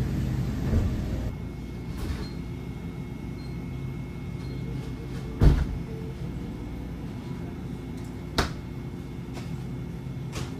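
Convenience-store background noise: a steady low hum broken by a few sharp knocks, the loudest about halfway through and another at about eight seconds. Background music ends about a second in.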